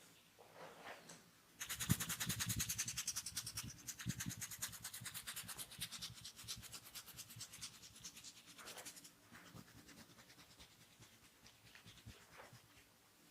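A masseuse's hands rubbing fast and rhythmically over the body in a massage, a quick scratchy stroking. It starts suddenly about a second and a half in, is loudest just after, and fades away over the next several seconds, leaving a few light rubs near the end.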